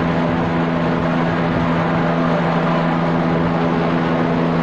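Police helicopter hovering overhead, its engine and rotor making a loud, steady drone.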